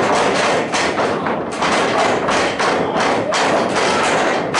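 Wrestlers' bodies and feet hitting a wrestling ring's canvas-covered boards: a rapid run of heavy thumps and slams, ringing in the hall.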